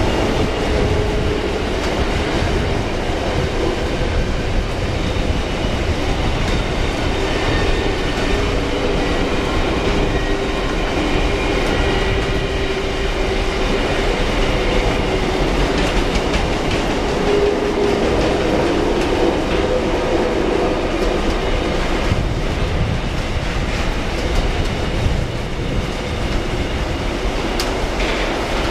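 Freight train passing through a station, its wagons rolling by steadily without a break.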